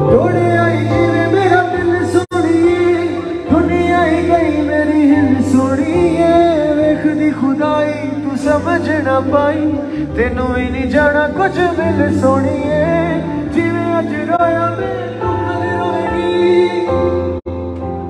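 Live band music: a male vocalist sings a wavering melody into a microphone over held keyboard chords, bass and drums.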